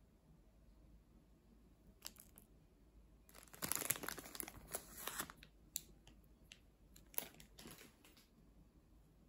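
Thin clear plastic wrapper crinkling and rustling as a daifuku is pulled out of its bag: a dense two-second burst of crackling, then a few sharper single crinkles.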